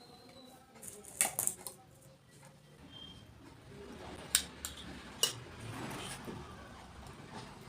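Crisp golgappa (pani puri) shells cracking and crunching in a few sharp snaps, with some rustling handling noise.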